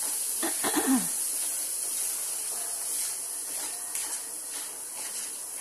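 Cumin and green-chilli paste frying in mustard oil in a pan, a steady sizzle while a spatula stirs it. A brief voiced sound, falling in pitch, about half a second in.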